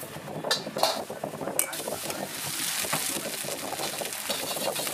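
Metal ladle scraping and knocking against a wok, with a few sharp clanks, over a steady sizzle of egg frying in hot oil as it is stirred.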